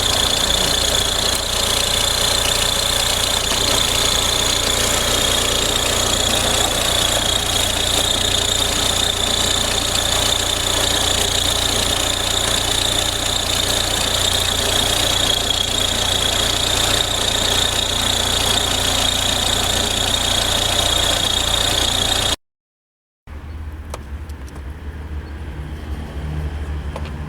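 Audi A4 B6 1.9 TDI diesel engine running, with a steady high-pitched whine over it that the mechanic puts down to a faulty belt tensioner. About 22 seconds in the sound cuts out briefly and returns quieter, with a low hum.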